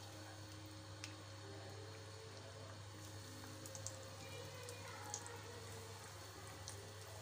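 Flour-coated chicken pieces deep-frying in hot oil in a pan: a faint, even sizzle and bubbling with a few light pops, over a steady low hum.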